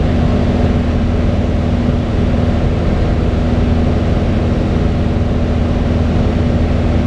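Piper Cherokee 180G's four-cylinder Lycoming O-360 engine and propeller droning steadily in flight, heard from inside the cabin, with a low, even hum and no change in pitch.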